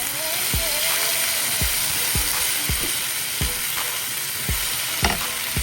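Chicken for fajitas sizzling in a frying pan, a steady hiss, over background music with a steady beat.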